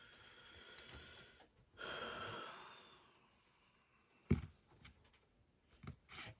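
A long breathy exhale with a faint whistle in it, swelling and fading, followed by a sharp click about four seconds in and a few fainter clicks near the end.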